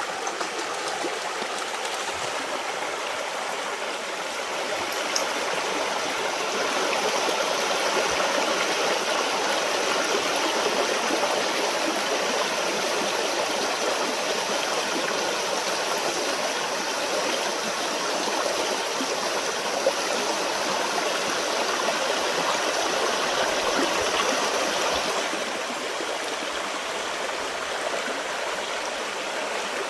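Creek water running over rocks, a steady rushing babble that eases a little over the last few seconds.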